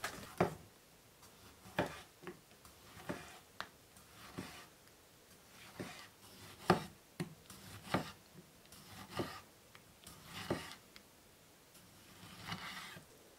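Kitchen knife slicing a tomato on a wooden cutting board: quiet, separate taps of the blade on the board, about one a second, with a short rubbing scrape near the end.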